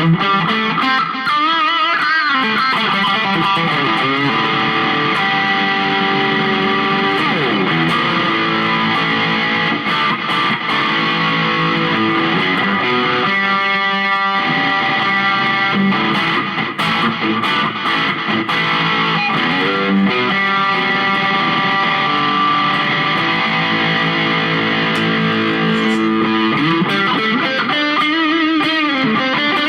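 Electric guitar with P90 pickups played on the bridge pickup with a hot, dirty overdriven tone: sustained notes and chords, with notes bent up and down a few times.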